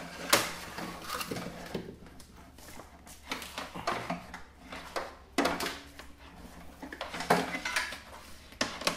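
Irregular clicks, knocks and light metallic clatter of tools and wiring being handled while the TV's power lead is hooked up.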